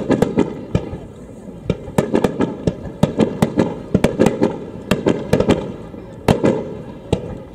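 Aerial firework shells bursting in quick succession: a barrage of sharp bangs, two or three a second at uneven spacing, each trailing off in echo.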